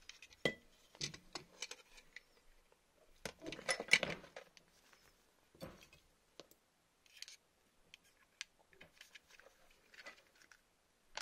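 Scattered clicks and knocks of an airsoft gearbox's metal shell and parts being handled, with a burst of louder clatter about four seconds in.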